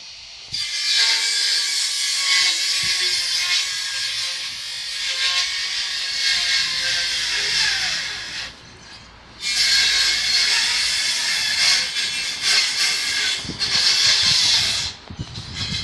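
Loud, harsh electrical hiss with faint steady tones inside it, from the signal driving the earth-transmission coil setup. It starts half a second in, cuts out for about a second near the middle, and drops out briefly again near the end.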